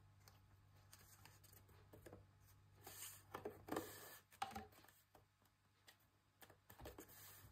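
Near silence, with a few faint rubs and rustles of fingers pressing and smoothing glued paper strips onto a grey-board box, mostly around three to four seconds in.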